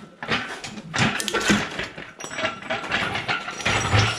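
Repeated metallic clanks and knocks, with chain rattle and ringing metal, as a tractor's heavy final-drive housing is eased off the rear axle and swings free on a shop crane chain.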